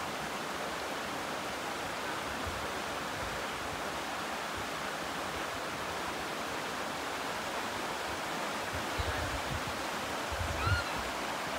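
Mountain stream rushing over rocks, a steady, even water noise, with a few soft low bumps near the end.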